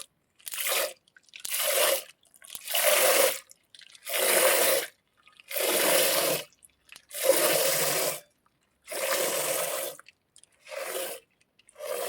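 Foley hand-milking sound: streams of liquid squirted into a container in a steady rhythm, about nine hissing squirts roughly a second and a half apart.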